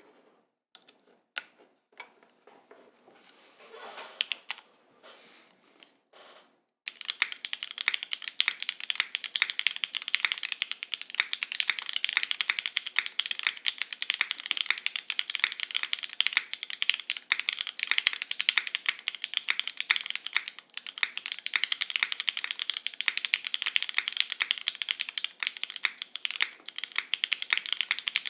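Fast, continuous typing on a custom mechanical keyboard: the Monokei x TGR 910 v2 ME with lubed Cherry MX Black linear switches in an O-ring-mounted polycarbonate plate, under GMK KA1953 keycaps, in a rapid stream of clacks. It starts about seven seconds in, after a few scattered key clicks.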